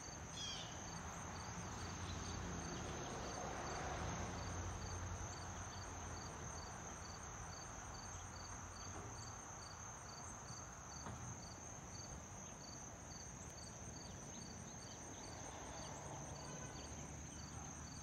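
Insects trilling steadily in a high, even drone with regular chirps about twice a second, over a faint low rumble from a high-flying Boeing 737-700 jet airliner that swells around four seconds in.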